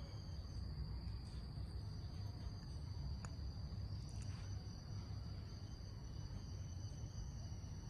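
A faint steady high-pitched whine over a low hum, with a couple of faint clicks about three and four seconds in.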